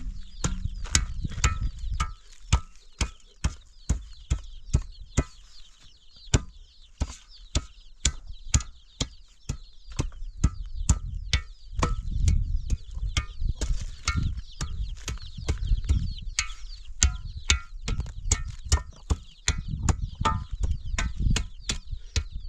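A rapid series of sharp knocks, about two or three a second, over a steady hiss and a low rumble.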